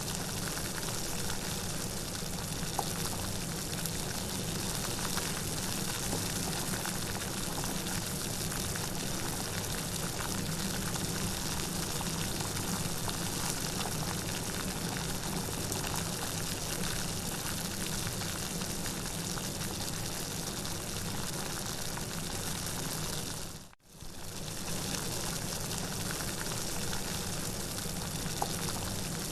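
Steady rain, an even hiss of many drops. About 24 seconds in it dips out almost to silence for a moment and comes straight back.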